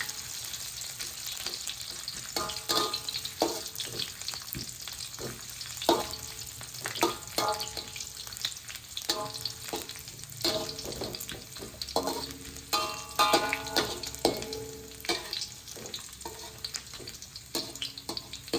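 Sliced ginger and shallots sizzling in hot oil in a pan, stirred with a spatula that scrapes the pan with short strokes every second or so.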